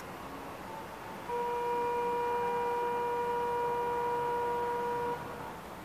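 A single steady electronic tone at a railway station, one unwavering pitch held for about four seconds. It starts about a second in and cuts off suddenly near the end, over a faint background hiss.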